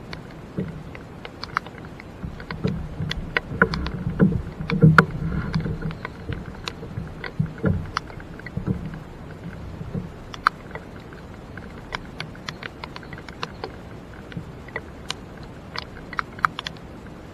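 Raindrops ticking at irregular intervals on a rain jacket and kayak, over a faint steady rain hiss. Dull knocks and rustling from handling the fishing rod and gear in the kayak come and go, heaviest between about two and nine seconds in.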